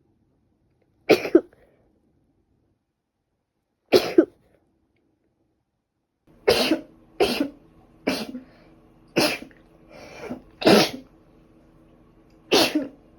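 A person with a heavy cold letting out a series of short, sharp sneezes: two a few seconds apart, then a quicker run of about seven, roughly one a second, from about six seconds in.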